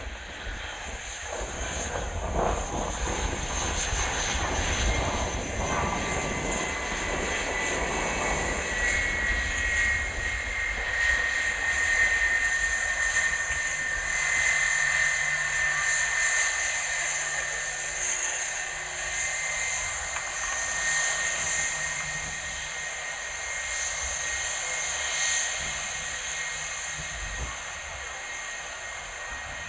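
An Airbus A320-family jet airliner's engines running at low power as it rolls slowly along the runway after landing. A steady jet roar with a thin whine on top builds as it passes close by, then slowly fades as it moves away.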